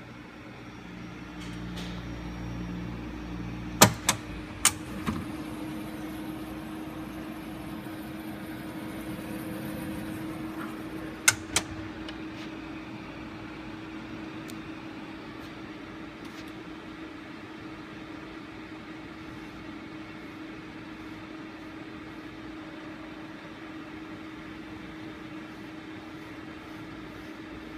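Thermo IEC MultiRF refrigerated centrifuge running with a steady hum, its rotor starting to turn at low speed in the second half. Sharp clicks come in two clusters, four about four seconds in and two more about eleven seconds in.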